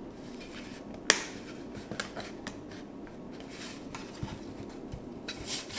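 Handling noise from rigid 3D-printed PLA plastic parts being picked up, turned and set down on a carpeted bench: one sharp click about a second in, a few light knocks after it, and a short rustle near the end.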